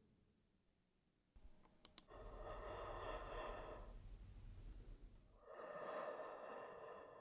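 Faint, raspy breathing: after a couple of soft clicks, one long breath starts about two seconds in, and a second one follows about five and a half seconds in.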